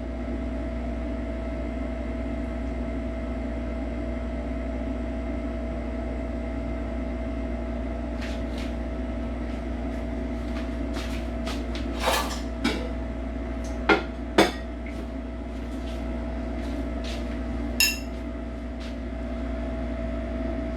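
Steady hum with a constant tone, with scattered clinks and knocks of dishes and utensils starting about eight seconds in; the sharpest are two knocks close together around the middle.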